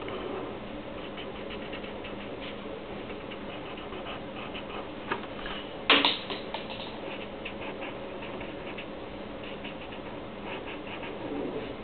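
Marker pen scratching across paper in many short, quick strokes, over a steady low hum. One sharp knock about six seconds in.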